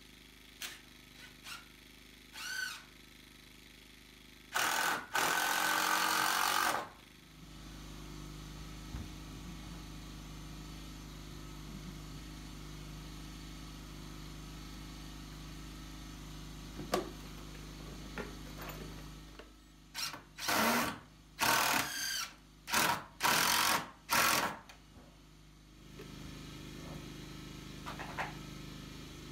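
Cordless drill driving screws into wooden boards. One longer run about five seconds in, then a quick series of about six short bursts near the end.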